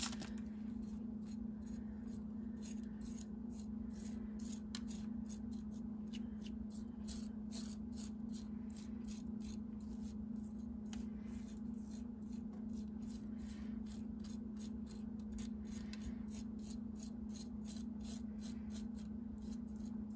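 A metal spoon working in a disposable aluminium foil roasting pan makes a quick, irregular run of light crinkling and scraping ticks, a few each second, over a steady low hum.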